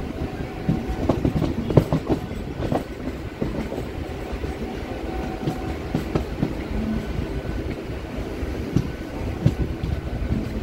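MMTS suburban electric train running along the track, heard from inside the coach: a steady rumble with irregular clacks of the wheels over rail joints.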